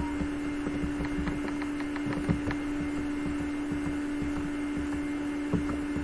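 Steady electrical hum with a low crackling rumble from the recording setup. A quick run of faint clicks comes between about one and two and a half seconds in, a mouse scroll wheel as the page scrolls, and two louder knocks fall at about two and five and a half seconds.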